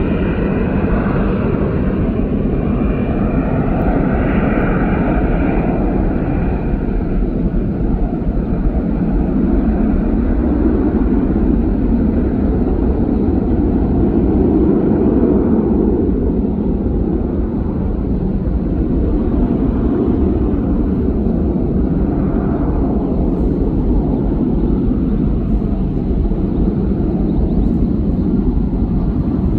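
Jet engines of a departing Airbus A319 heard from the ground as the airliner climbs away: a steady deep rumble, with a higher engine whine that fades out over the first several seconds.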